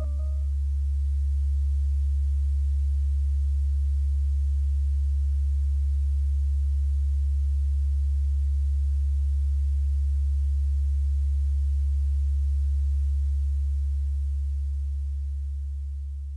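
Background music ending on a single deep, steady bass tone held unchanged, fading out near the end; the last few chime-like notes of the music die away in the first half second.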